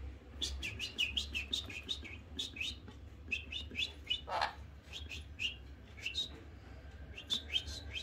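Pet sun conure chirping: quick runs of short, high, falling chirps in several bursts, with one lower, longer call about four seconds in.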